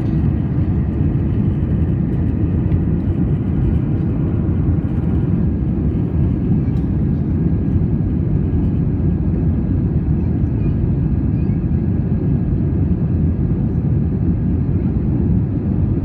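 Steady rumble of an Airbus A320's jet engines and airflow heard from inside the cabin, with a faint steady whine above it.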